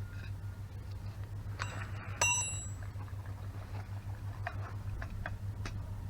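A piece of metal struck once against metal, ringing briefly like a small bell, with a short clatter just before it and a few light clicks and knocks afterwards, over a steady low hum.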